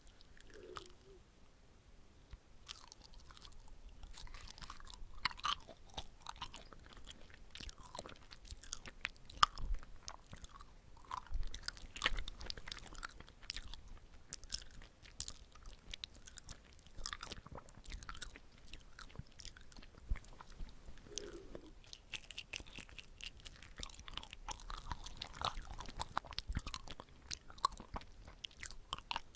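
Close-miked chewing of chewy red-bean-filled glutinous rice cake (chapssal-tteok), with irregular wet, sticky mouth clicks and smacks.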